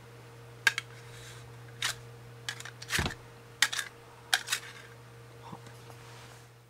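Scattered sharp clicks and taps of a metal piece and fingers against a clear plastic box lid as the piece is slid about and set down, about ten in all, over a steady low electrical hum.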